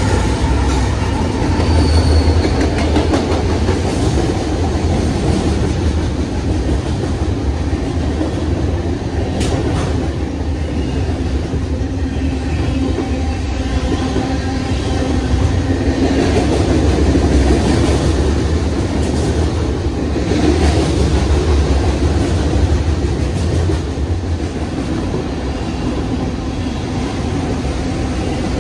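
BNSF freight train rolling past at close range: a steady, heavy rumble of wheels on the rails. A brief thin wheel squeal comes about two seconds in, and a single sharp knock around ten seconds in.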